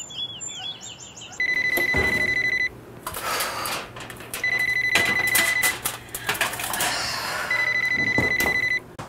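Mobile phone ringing three times, a rapidly pulsed electronic ring about a second long every three seconds. Between the rings a baking dish and the oven door clatter, and birds chirp briefly at the start.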